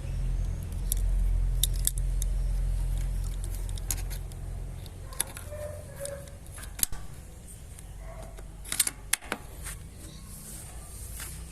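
Scattered small clicks and light metallic ticks of something being handled, over a low rumble that is strongest for the first few seconds and then fades.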